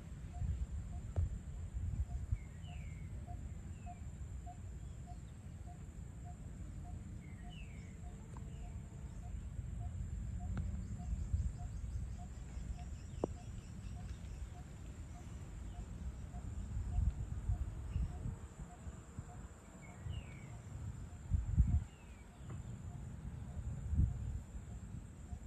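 Outdoor evening ambience of birds and insects. A short low note repeats evenly about twice a second through the first two-thirds, with scattered short falling bird chirps and a faint steady high insect whine over it. An uneven low rumble runs underneath, with a few louder surges near the end.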